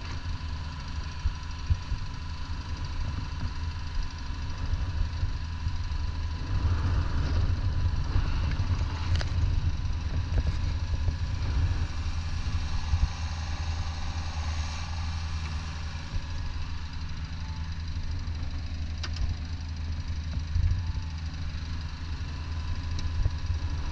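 Hitachi ZX55U-5A midi excavator's diesel engine running steadily, swelling louder at times as the upper structure slews and the boom and arm are raised on hydraulic power.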